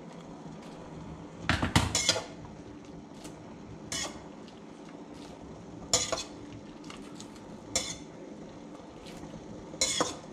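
Metal tongs clinking and scraping against a steel pot and mixing bowl as spaghetti is lifted across. The clatter comes in about five short bursts, roughly every two seconds, and the first is the loudest.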